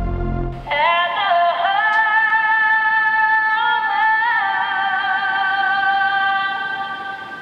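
Music: a low rumble ends just under a second in, then one long high note, sung or played, holds for about six seconds with a brief dip in pitch. A new note slides down into place at the very end.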